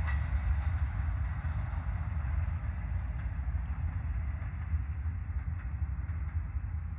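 Distant freight train rolling away, its rail and engine noise slowly fading, over a steady low rumble.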